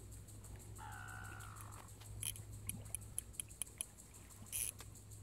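Spinning reel being wound in, giving light, irregular clicking from about two seconds in. About a second in, a single drawn-out animal call that falls slightly in pitch.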